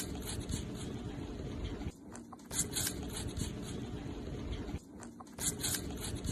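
Chipmunk nibbling and chewing a cluster of berries close to the microphone: quick, soft clicky crackles over a low rustle, breaking off briefly twice.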